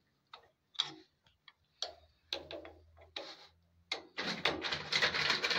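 Sharp plastic clicks and knocks as a boiler's three-way valve motor is twisted right and left to work it free of the valve body. Near the end comes a dense crackle lasting about a second and a half, over a faint low hum.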